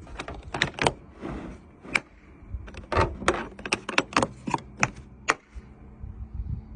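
A quick run of sharp clicks and knocks from hard plastic tool-case parts and contents being handled, busiest in the middle and stopping about a second before the end.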